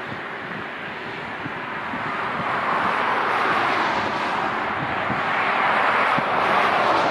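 Jet airliner engines, a steady rushing that grows louder from about two seconds in, with wind buffeting the microphone.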